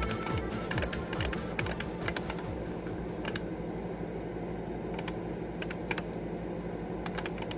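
Irregular key clacks as someone types on an IBM 5110 computer's keyboard, entering machine code by hand.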